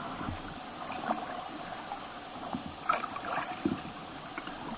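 River water gurgling and lapping around a kayak's hull as it moves down a small stream, with a few faint splashes and one sharp tap about three seconds in.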